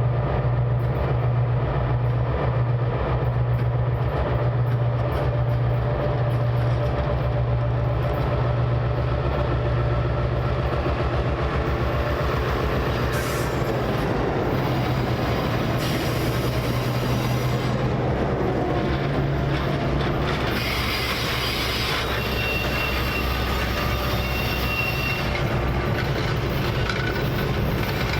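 A passenger train rolling past, with a low diesel drone and wheels clicking evenly over the rail joints. Later a thin high wheel squeal comes in briefly.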